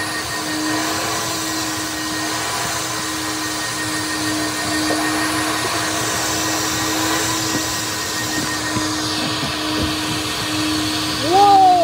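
Automatic car wash heard from inside the car: spinning cloth brushes and water spray make a steady whooshing noise with a constant low hum. Near the end a brief loud pitched sound rises and falls.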